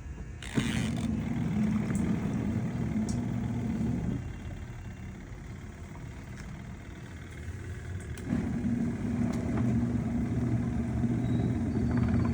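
Small Astron washing machine's wash motor running in spells: it hums steadily for about three and a half seconds, stops for about four seconds, then starts up again and runs on. This is the stop-start pattern of the agitator during a wash cycle.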